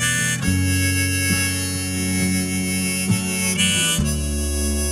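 Harmonica playing held chords as the instrumental opening of a song, changing chord about half a second in and again near the end.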